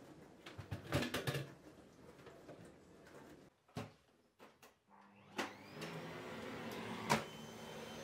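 A few knocks and clatter, then a bagless canister vacuum cleaner switches on with a click and a rising whine as its motor spins up, settling into a steady run.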